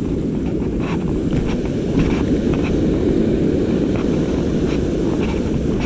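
Steady low rumble of wind buffeting the microphone over the rush of a shallow, rocky river, with a few faint scattered ticks.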